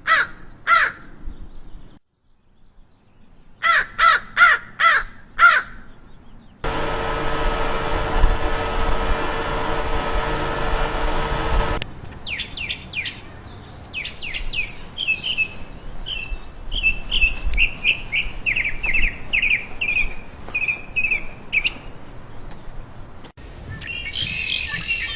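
A crow cawing in short series of four or five harsh calls, followed by a steady hum-laden noise for about five seconds, then a songbird singing long runs of quick, high chirping notes.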